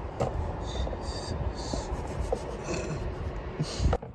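Rubbing and scraping, with a few sharp clicks near the end, as a plastic puddle light is pushed into its recess in the bottom of a car door.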